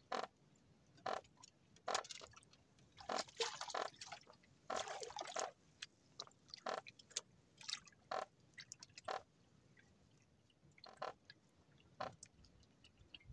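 Small splashes and drips of water against a small outrigger boat, short and irregular.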